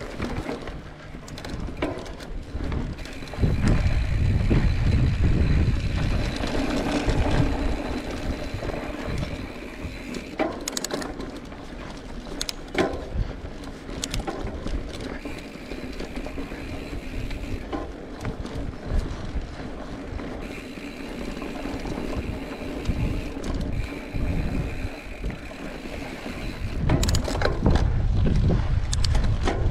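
Mountain bike ridden on a dirt trail: wind buffets the microphone and swells louder twice, the rear freewheel hub buzzes in stretches, and the bike knocks and rattles over a few bumps.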